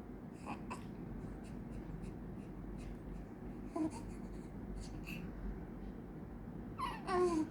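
A one-month-old baby's faint scratchy rustling against a blanket as she kicks, with a short vocal sound about four seconds in and a louder, pitch-gliding infant vocalization near the end.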